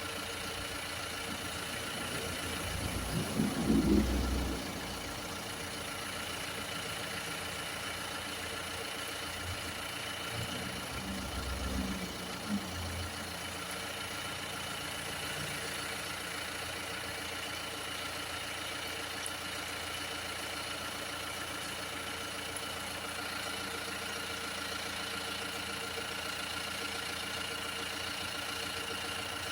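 MINI F60 diesel engine running steadily, an even hum with a couple of low thumps, one about four seconds in and another around twelve seconds.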